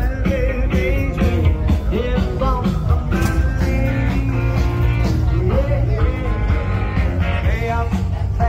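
Rock-and-roll song playing, with singing over a steady bass.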